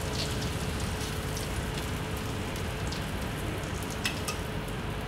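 Steady sizzling hiss from a hot sauté pan of prawns and asparagus in butter, with a few faint, light clicks.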